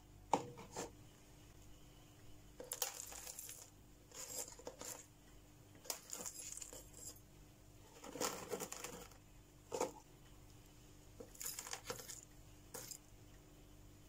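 Gravel top dressing being spooned out of a plastic tub and dropped onto the soil of a small potted cactus: small stones rattling and clinking in a string of short, irregular bursts.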